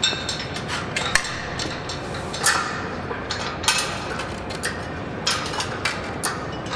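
Sheet-metal shrinker-stretcher biting along a curved metal flange: a run of irregular metallic clacks, a few each second, as its jaws close again and again to form the bend.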